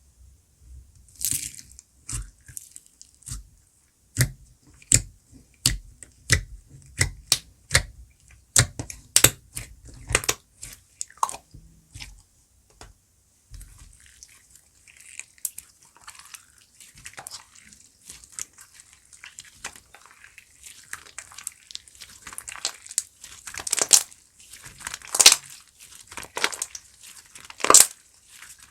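Fruits Choki slime being pressed and played with by hand. For about the first twelve seconds it gives a run of separate sharp sticky pops, one or two a second, then a denser crackling and squishing with a few louder pops.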